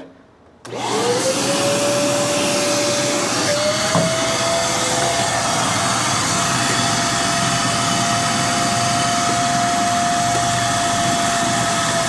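Kärcher WD2 Plus wet/dry vacuum switched on just under a second in, its motor spinning up with a rising whine and then running at a steady high whine and rush of air while its hose sucks water out of a bucket.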